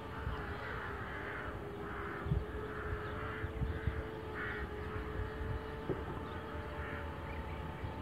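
Crows cawing several times over a steady, slightly wavering hum from a tiny quadcopter's 6 mm motors in flight.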